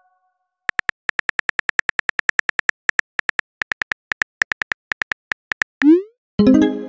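Texting-app keyboard typing sound effect: a rapid, even run of short synthetic clicks for about five seconds as a message is typed out. It ends in a quick rising swoosh as the message is sent and a short pitched chime as it appears in the chat.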